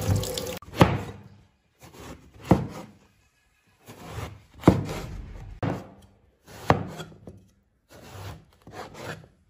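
Kitchen knife slicing through a green eggplant and knocking on a wooden cutting board: separate sharp knocks, the strongest about every two seconds with softer ones between. Running tap water is heard briefly at the very start.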